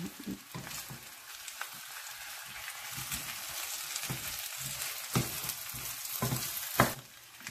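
Cooked rice sizzling in hot oil in a frying pan while a wooden spatula stirs it, with a few sharp knocks and scrapes of the spatula against the pan.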